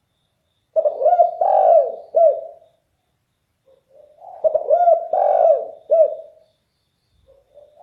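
Spotted dove (derkuku) cooing loudly in a deep voice: two phrases of several arching coos, about three seconds apart, with a third phrase starting near the end.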